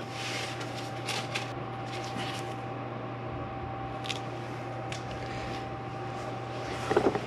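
A steady low workshop hum with a thin held tone, and a few faint clicks and rustles of small parts being handled.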